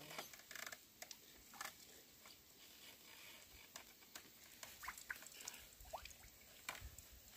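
Near silence with faint scattered clicks, scrapes and rustles as a wooden lever press is worked by hand on a cloth sack, plus a couple of short, faint chirps about five to six seconds in.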